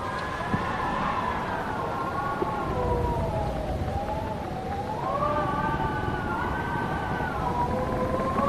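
Howling wind: several whistling tones slowly rise and fall together over a low rumble of gusts.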